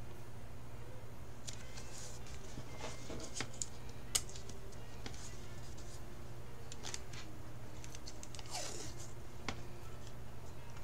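Wide washi tape being pulled off its roll and pressed down on watercolour paper on a clipboard: light clicks and rustles, a sharp click about four seconds in, and a longer peeling sound near the end, over a steady low hum.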